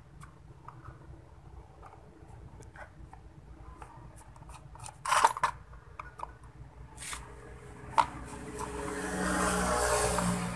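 Screwdriver working the screws out of the terminal-box cover of an electric motor: light clicks and small metal clinks, with a louder clatter about five seconds in. A rasping scrape builds near the end.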